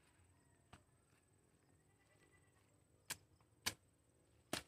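A blade chopping through weed and grass stems: three sharp strikes about half a second apart, starting about three seconds in, after near silence with one faint tick.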